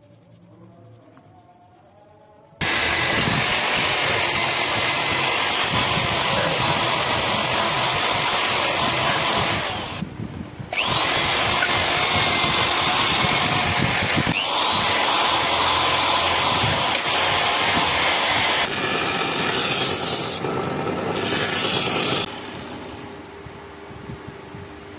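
Electric power tool grinding or polishing a steel knife blade: a loud rough hiss with a steady high motor whine, starting suddenly a couple of seconds in, pausing briefly twice and stopping near the end, leaving a quieter steady hum.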